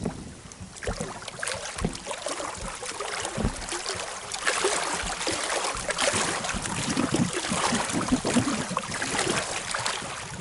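Lake water lapping and splashing against a small inflatable fishing boat, with wind on the microphone. The splashing gets louder about halfway through.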